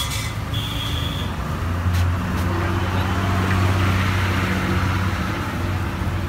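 Street traffic: a motor vehicle's engine running close by, its low hum swelling about two seconds in and fading near the end.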